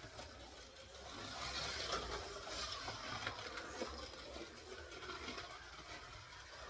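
Scalextric Holden VL Commodore slot car running laps on a plastic track: the small electric motor whirs and the car rattles along the slot, louder about two seconds in as it comes close, with a few sharp clicks.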